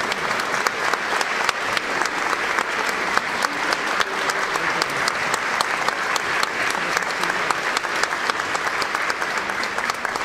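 Concert audience applauding: many hands clapping in a dense, steady stream.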